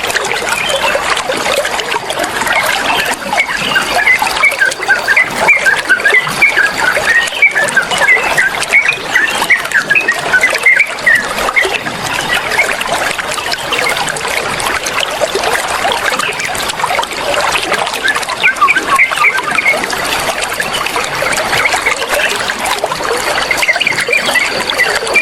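Water flowing and trickling steadily, with small songbirds chirping rapidly over it throughout.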